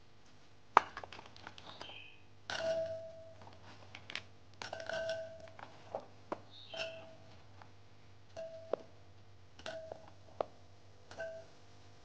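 Garlic cloves and shallots dropped by hand into a glass food-chopper bowl. They knock against the glass in irregular short clinks that ring briefly, about one a second, the loudest about a second in.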